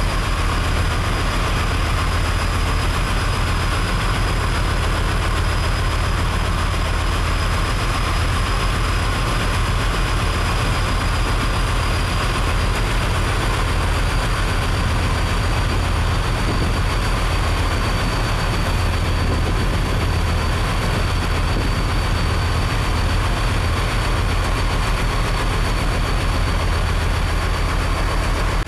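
A boat's engine running steadily at sea, a constant low drone with a thin, steady high whine above it.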